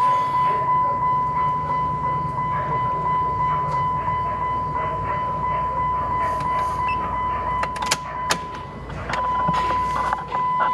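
2015 Jeep Wrangler JK's 3.6-litre V6 idling steadily, under a steady high-pitched tone that drops out briefly near the end. A couple of sharp clicks about eight seconds in.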